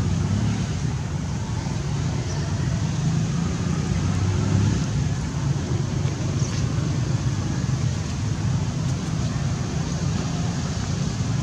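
Steady low rumble of outdoor background noise, with no clear animal call.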